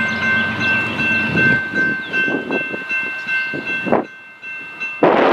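Nathan K5HLL five-chime air horn of a BNSF GE ET44C4 locomotive sounding a steady chord on an approaching intermodal train, over the rumble of the train. A loud rushing noise swells in near the end.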